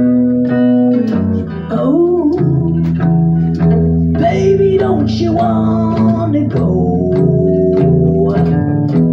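Live guitar playing picked, bluesy notes, with a second wavering, bending melodic line over it from about two to six and a half seconds in.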